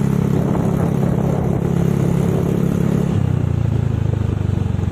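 Honda Vario scooter's single-cylinder engine running through a cheap aftermarket RCB exhaust while riding, a steady low drone. Its note drops about three seconds in as the rider slows from about 30 km/h.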